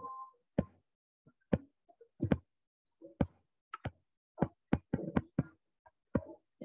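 A pen stylus knocking and tapping on a tablet while hand-writing a word: a string of irregular, short, light knocks, a few each second, coming a little faster in the second half.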